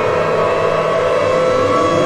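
Outdoor warning sirens sounding: steady siren tones hold throughout, and a little past midway a low tone begins to rise slowly as a siren winds up.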